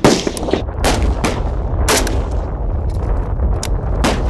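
AK-pattern assault rifle fired in single shots: about five sharp cracks at irregular intervals, the loudest right at the start, with a steady low rumble underneath.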